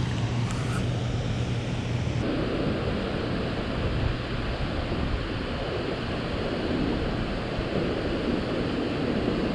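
Strong wind rushing over the microphone, a steady noise, with choppy water moving around a kayak. A low steady hum sits under it for the first two seconds.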